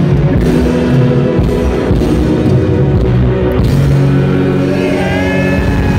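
Live rock band playing in an arena, ending on long held chords.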